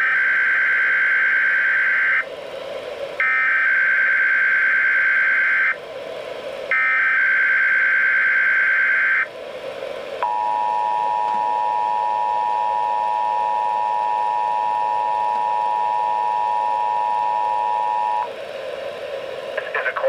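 NOAA Weather Radio Emergency Alert System header coming through a weather alert radio's speaker: three identical raspy digital data bursts of about two seconds each, a second apart. These are followed by a steady two-tone attention signal held for about eight seconds. Together they open a Required Monthly Test.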